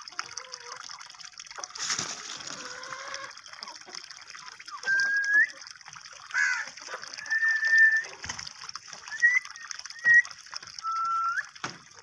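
Alexandrine parakeet giving a run of short clear whistles, several ending in a quick upward flick. Water trickles from a pipe underneath.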